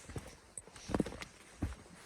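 Footsteps of a hiker in boots on a trail lightly dusted with snow: a few separate thuds at a walking pace, the loudest about a second in.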